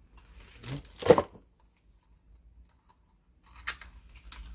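Small paperboard product boxes being handled: one short loud scrape about a second in, then near the end a run of clicks and rustling as a box flap is opened.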